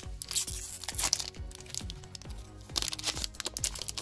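A trading card booster pack's foil wrapper crinkling and tearing as it is opened, in two spells, the first and longer one at the start, over background music.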